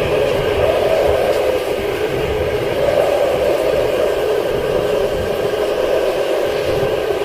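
Strong storm wind of a tornado blowing as a loud, steady rushing noise with a rumble underneath.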